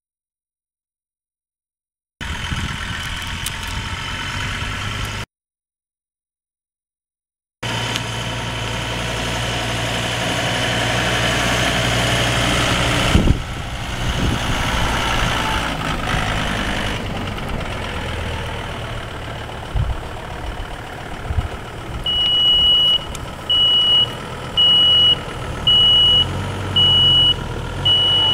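John Deere 5325 utility tractor's diesel engine running steadily, cut by two gaps of dead silence in the first eight seconds. Over the last six seconds a short high beep repeats about once a second, like a backup alarm.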